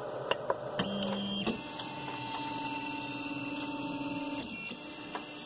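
TEVO Tornado 3D printer's stepper motors driving the axes as a print starts: a steady whine that steps up to a higher pitch about a second and a half in, runs for about three seconds and stops, with a brief second run near the end. A few light clicks come at the start.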